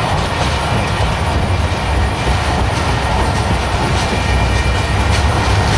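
Freight train tank cars rolling past, a steady loud rumble of steel wheels on the rails. Faint thin high tones sit over the rumble.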